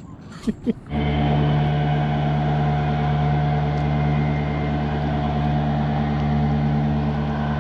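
Boat motor running at a steady speed and pitch, cutting in abruptly about a second in after a few light paddle knocks and splashes.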